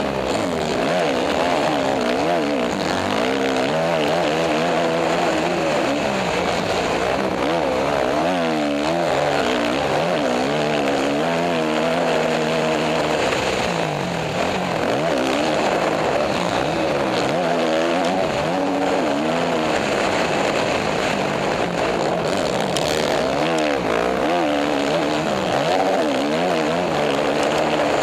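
Motocross dirt bike engine revving hard and easing off over and over under racing throttle, its pitch climbing and falling with each run up the gears, heard close up from the rider's helmet with rushing wind noise.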